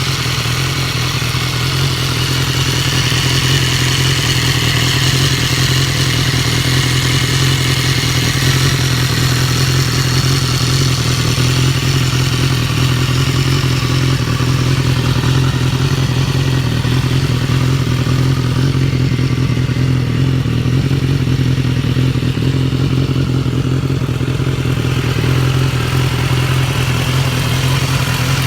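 2015 BMW S1000R inline-four engine running steadily, with a ticking coming mainly from the left side of the engine. The ticking was the sign of a faulty cam chain tensioner and throttle butterfly valve; replacing them cured it.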